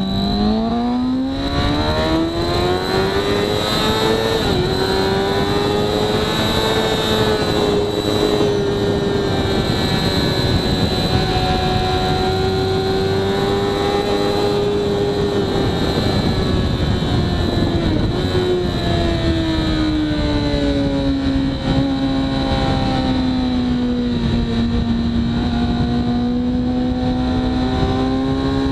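2013 Kawasaki ZX-6R's inline-four through a Hindle full exhaust, heard onboard at speed with wind rush. It revs up hard out of a slow corner over the first few seconds and holds high revs for a long stretch. After about 18 seconds the revs drop away under braking, then climb again near the end.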